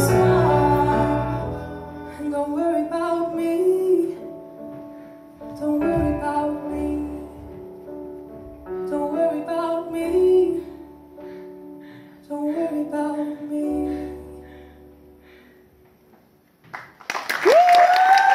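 A slow song performed live, a woman's voice with cello and keyboard, its phrases dying away to near silence. About a second before the end, applause breaks out with a cheer over it.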